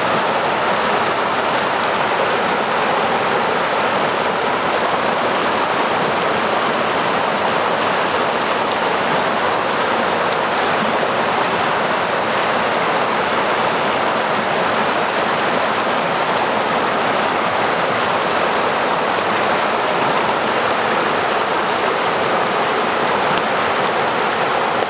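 Mountain stream rushing over boulders and small cascades: a steady, loud rush of running water.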